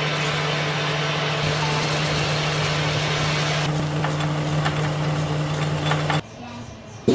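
Metal lathe running with a steady motor hum, a brass workpiece spinning in the chuck, with the hiss of a hand file working the turning brass for the first few seconds. The sound cuts off suddenly about six seconds in.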